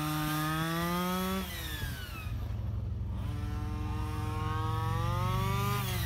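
Redcat Rampage XR Rally 1/5-scale RC car's small two-stroke gasoline engine under throttle, its pitch climbing, then dropping off about a second and a half in. It picks up again and climbs for a few seconds before backing off near the end.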